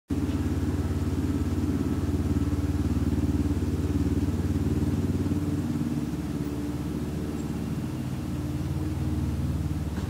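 An engine running steadily: a low, even drone with a rapid firing pulse, easing slightly about six seconds in.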